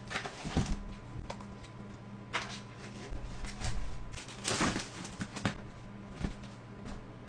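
Irregular short crunches and clicks of eating and handling food over a steady low hum, the biggest crunch about halfway through.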